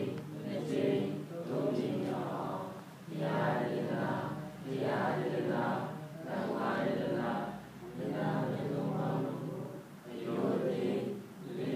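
Buddhist devotional chanting by a group of voices in unison, recited in phrases of a second or two with short pauses for breath between them.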